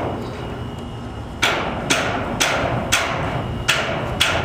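Hammer blows on a sheet-metal carport roof panel, banging dents and holes flat: about six sharp strikes, roughly two a second, beginning about a second and a half in.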